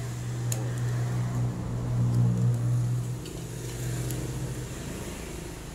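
A steady low mechanical hum, swelling about two seconds in and weakening after about three seconds, with a couple of faint clicks of small metal parts being fitted by hand onto a motorcycle cylinder head.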